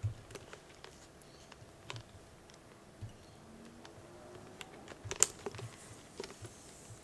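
Small metal clasps of a handbag shoulder strap clicking and tapping as they are fitted onto the bag's tiny metal rings: faint scattered clicks, with one sharper click about five seconds in.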